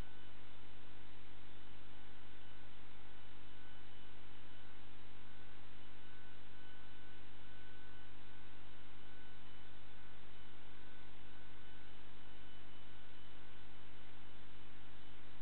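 Steady electrical hum with an even hiss, unchanging, with no ball strikes or other events.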